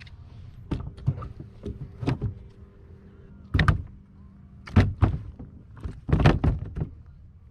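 A series of irregular knocks and thumps on a kayak, coming in clusters about a second apart, the loudest about three and a half, five and six seconds in.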